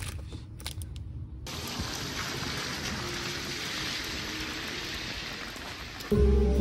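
Steady rushing water, an even hiss that starts about a second and a half in; music comes in near the end.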